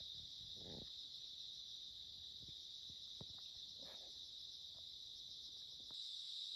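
Steady high-pitched chorus of insects chirring, faint, with a few soft knocks and rustles in the foreground. The chorus grows a little louder near the end.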